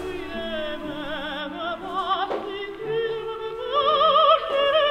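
Operatic singing on high held notes with a wide, regular vibrato, over sustained low notes of accompaniment.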